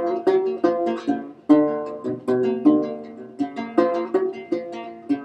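Gourd banjo played solo: plucked notes in a steady rhythm, about three to four a second, each ringing on, with one note sounding steadily underneath.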